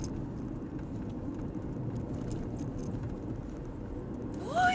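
Steady low rumble of a car driving, with faint scattered ticks; just before the end, a brief pitched sound glides up and then down.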